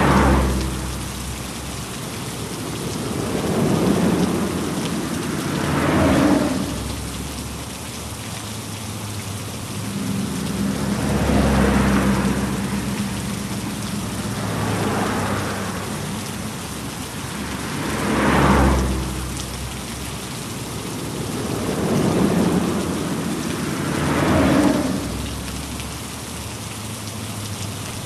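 Heavy rain falling steadily, with a deeper swell that rises and fades every three to six seconds.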